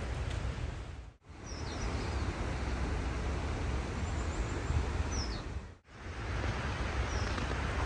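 Outdoor forest trail ambience: a steady rushing noise with a low rumble, and a few short, falling bird chirps. The sound cuts out briefly twice, about a second in and at about six seconds.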